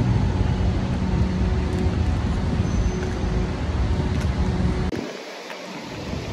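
Street traffic noise with a nearby vehicle engine running: a steady low rumble with a faint hum. About five seconds in it cuts off to a quieter outdoor hiss.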